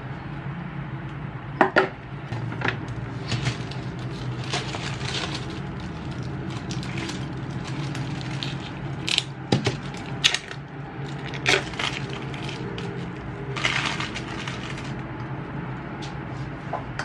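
Small household objects being picked up and set down on a tabletop: scattered light knocks and clinks, among them a pillar candle and a glass plate, with a short rustle about fourteen seconds in, over a steady low hum.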